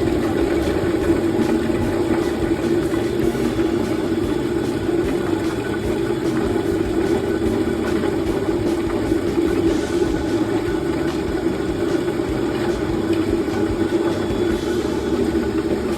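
Sweet potato peeling machine running steadily, a constant mechanical hum with an even rushing noise.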